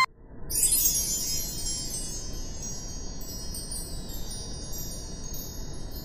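Chimes tinkling: a shimmering cluster of many overlapping high ringing tones that comes in suddenly about half a second in and holds steady, like wind chimes.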